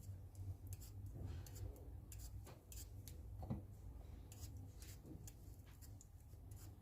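Faint, irregular clicks and taps of a kitchen knife cutting small slits into raw potatoes, over a steady low hum. One louder knock comes about three and a half seconds in.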